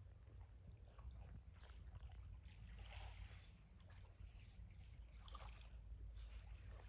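Small water splashes and trickles around a kayak, scattered faint ticks over a low, steady rumble.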